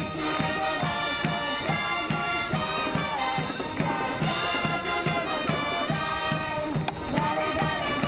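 A marching brass band playing a lively tune, trumpets and trombones over a steady drum beat of about two strokes a second.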